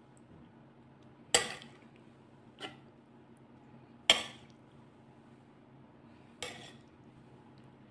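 A metal spoon clinks four times against the dishes while pasta is scooped and spooned in; the loudest clink is about four seconds in.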